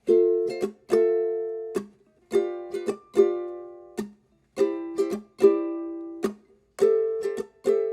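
Intro of a song on a solo strummed ukulele: bright chords in a repeating rhythm, some strokes quick and some left to ring and fade.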